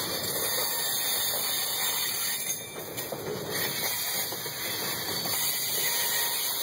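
Freight train boxcars rolling past, their steel wheels running on the rails with a steady noise that dips slightly about two and a half seconds in.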